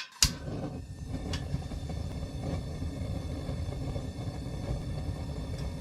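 A 25,000 BTU propane heater lighting with one sharp click, then burning on its low setting with a steady low rushing rumble.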